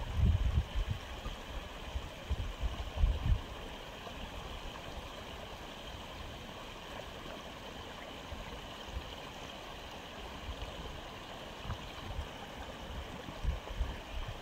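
Aquarium filter running: a steady trickle of falling water, with a few low bumps right at the start and about three seconds in.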